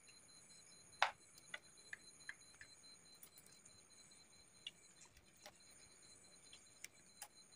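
Light, irregular clicks and ticks of a reversing-camera cable and its plastic RCA plugs being handled, the sharpest about a second in.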